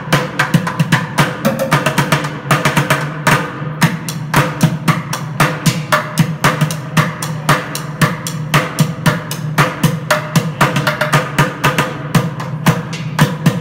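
Bucket drumming: two drummers play fast, dense rhythms with sticks on upturned plastic buckets and pails. Rapid sharp hits run over a low, hollow bucket tone.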